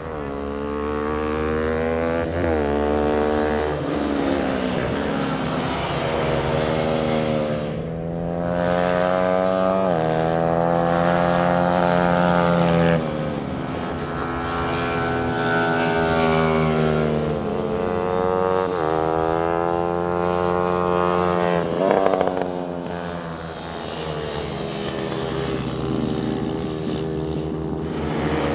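Racing motorcycle engines revving hard as the bikes run along the circuit. The pitch climbs and then drops sharply with each gear change, many times over.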